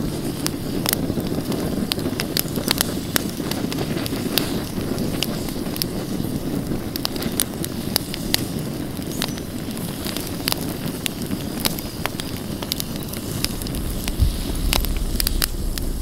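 Open wood campfire burning, crackling with many sharp pops over a steady rush of flames. A low rumble comes in near the end.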